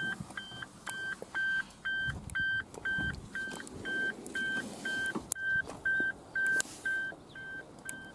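A car's electronic warning chime beeping steadily at one pitch, about two short beeps a second, with a few faint clicks and knocks.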